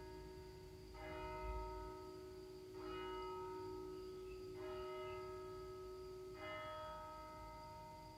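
Church bell striking slow single strokes, four in all, a little under two seconds apart, each stroke ringing on with a steady hum.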